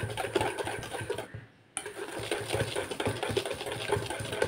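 Wire whisk beating thin cake batter in a stainless steel bowl, clicking rapidly against the metal sides. It breaks off for about half a second a little after one second in.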